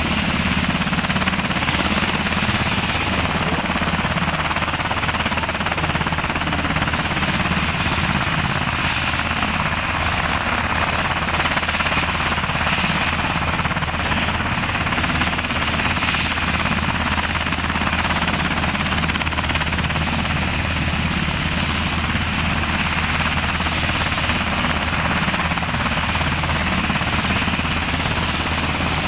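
Sikorsky HH-60G Pave Hawk helicopter running on the ground, its twin engines and turning main and tail rotors holding a steady sound.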